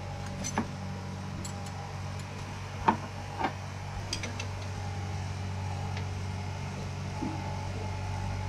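Several sharp clinks and knocks of hand tools on the bolts of a sailboat's inboard engine as they are checked for tightness, the loudest about three seconds in, over a steady low hum.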